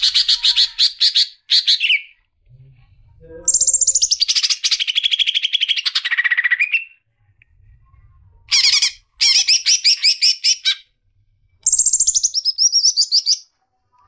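Green leafbird (cucak ijo) singing loudly in four bursts of rapid high notes with short pauses between; two of the phrases start high and slide down in pitch.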